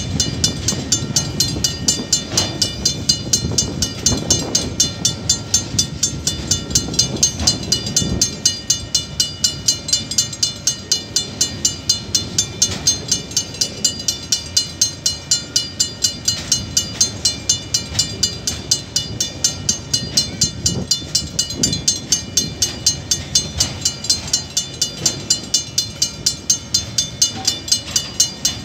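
Level-crossing alarm bell ringing steadily at about two strokes a second over the low rumble of a container freight train's wagons rolling through the crossing, with occasional wheel knocks on the rail joints.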